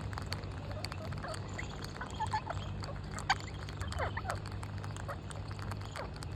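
Birds calling: scattered short squawks and chirps, one sharper call a little after three seconds in, over a steady low hum.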